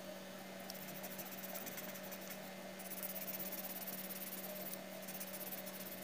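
Pencil scratching on drawing paper in quick strokes for a few seconds, pausing briefly midway, over a steady low hum.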